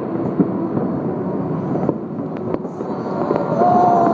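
Fireworks display: a dense, continuous rumble of bursts with a few sharp cracks. It swells near the end, where a single rising-then-falling tone rides over it.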